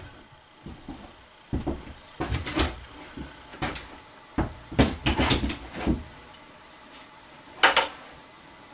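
Scattered knocks and clunks of gear being handled on a wooden shooting bench, with a busier run of them around five seconds in and one more near the end.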